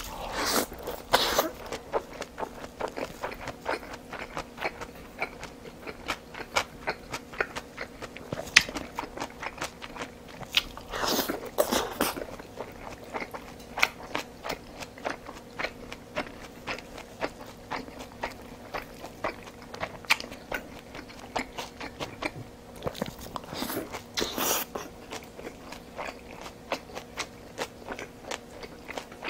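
A person chewing and biting mouthfuls of rice and Korean side dishes, with many small wet mouth clicks and about three louder, longer bursts of eating noise as new mouthfuls go in.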